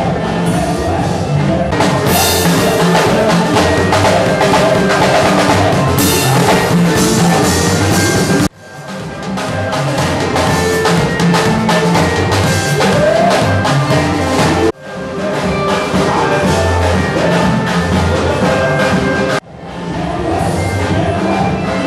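Church praise-band music with keyboard and drum kit playing a steady, driving beat. It cuts out abruptly three times and swells back in.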